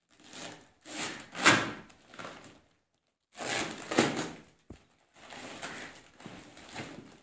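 Woven plastic sack of a parcel rustling and crinkling in repeated bursts as hands work at its sewn-up top and pull it about; the loudest crackles come about a second and a half in and at about four seconds.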